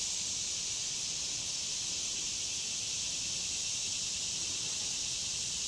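Steady high-pitched insect chorus, an even hiss with no distinct calls or events.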